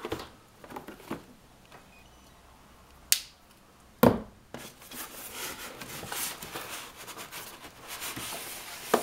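Cardboard box being opened by hand: a sharp click about three seconds in and a thump about a second later as the flaps come open, then several seconds of cardboard flaps and foam packing rustling and scraping.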